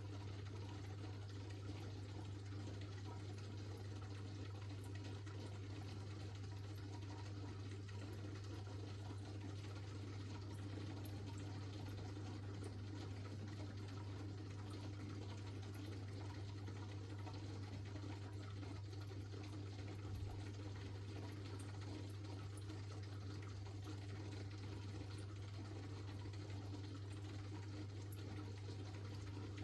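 Aquarium filter running: a steady low hum over a faint wash of moving water. One small click about two-thirds of the way through.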